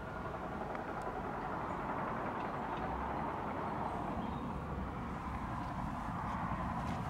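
Steady, distant road-traffic noise from the nearby road bridge, an even hum of tyres with low rumble beneath.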